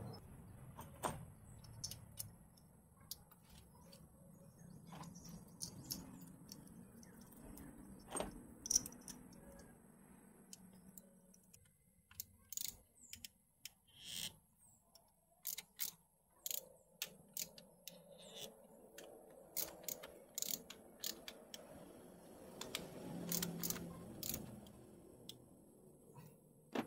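Faint, irregular metallic clicks and clinks of hand tools at work while a spark plug is removed and a new one fitted.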